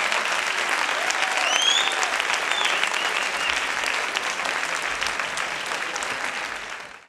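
Concert audience applauding, with a few shouts and a short rising whistle about one and a half seconds in. The applause fades away near the end.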